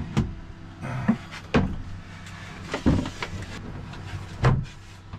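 Wooden floor panels being set down and knocked into place over an under-floor storage compartment: a series of separate knocks and thumps, about six in five seconds, with a steady low hum underneath.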